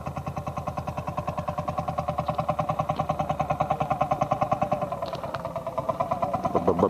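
Old tractor engine running with an even, rapid thump of about eight to ten beats a second over a steady engine note, which drops slightly in pitch about five seconds in.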